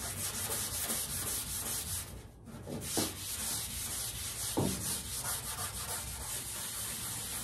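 A red abrasive pad is rubbed by hand back and forth over a primered steel car fender in quick, even strokes, with a brief pause a little over two seconds in. The primer is being scuffed so that body filler will bite into it.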